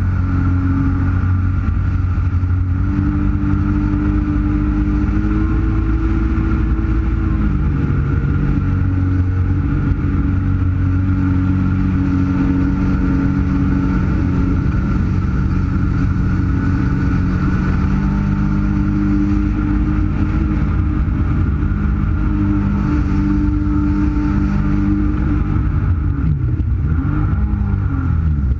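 Jet ski engine running steadily under way, its pitch shifting slightly with the throttle. Near the end the throttle is eased off and the pitch dips, then climbs again.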